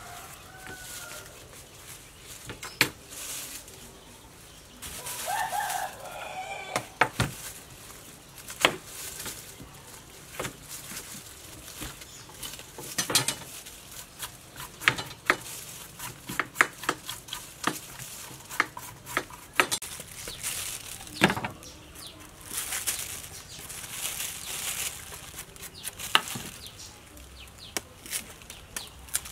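Knife work on a taro root on a wooden board: scattered sharp knocks of a cleaver and stretches of scraping as the blade shaves off the rough skin. A chicken clucks briefly about five seconds in.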